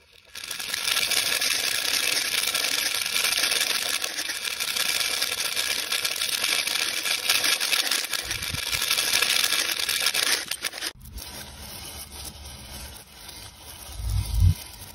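Many small plastic pony beads pouring and scattering on a hard surface: a dense, continuous rattle that stops abruptly about eleven seconds in. It is followed by quieter scraping as a plastic stick pushes loose beads across the tabletop, with a brief low thump near the end.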